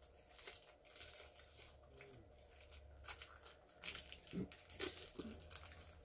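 Faint crinkling and rustling of a plastic sweet wrapper being handled, a scatter of short, sharp crackles.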